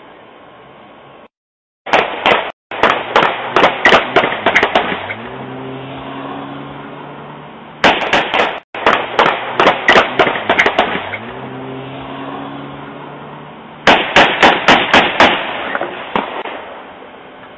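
A rapid string of gunshots, more than a dozen cracks in about three seconds, heard three times over, through a porch security camera's microphone. After each volley comes a steady engine note that rises in pitch, a vehicle speeding away.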